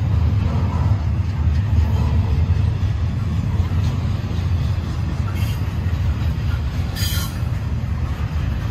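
Double-stack container well cars of a freight train rolling past: a steady low rumble of steel wheels on rail, with a short high screech from the wheels about seven seconds in.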